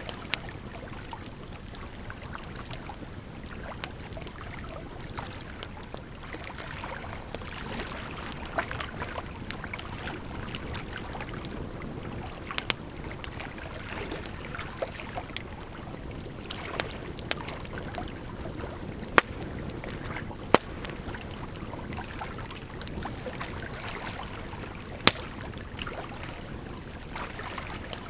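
Firewood burning, crackling with scattered sharp pops, over a steady bed of running water.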